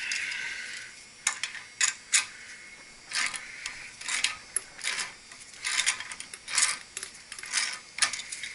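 Metal tools and pipe fittings being handled: about a dozen separate sharp clinks and short metallic rattles and scrapes at uneven intervals.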